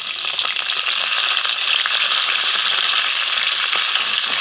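Hot oil sizzling and crackling around crushed garlic and fresh curry leaves just dropped into the pan for tempering, with many small pops, getting louder about half a second in.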